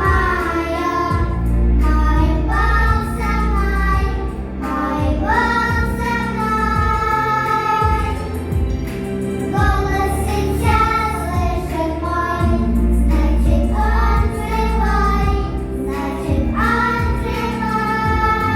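Girls singing a song together over a backing track with a heavy, steady bass line.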